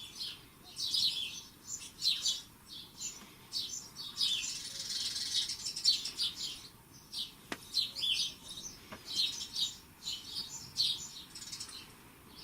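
Small birds twittering, a dense run of short high chirps with brief pauses, and two faint clicks partway through.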